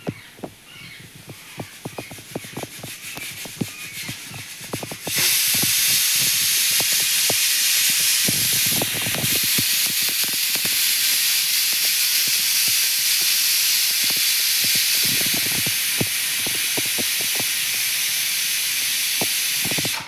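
Babblers chirp faintly over scattered taps and clicks. About five seconds in, a loud, steady hiss starts abruptly and drowns out the rest, holding evenly while the taps go on beneath it.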